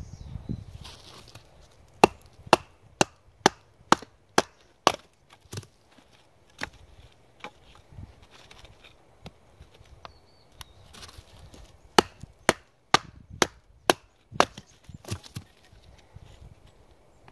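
Batoning: a wooden baton knocking on the back of a knife blade driven into a piece of wood to split it open. Sharp knocks about two a second, a run of seven about two seconds in, a few single blows, then a second run of six near the end.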